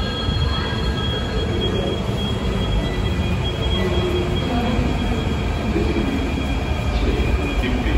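Delhi Metro train running through the station: a steady deep rumble with a thin, high wheel squeal held over it.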